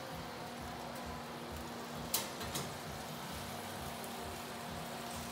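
Roast chicken sizzling in its hot pan in the open oven, a steady crackling hiss of spattering fat and juices, with two sharp metallic clinks about two seconds in from the oven rack or pan.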